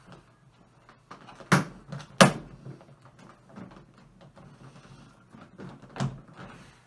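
Hard plastic clicks and knocks as the hood of a covered cat litter box is fitted and latched onto its base. Two sharp snaps come about a second and a half and two seconds in, and a lighter knock comes near the end.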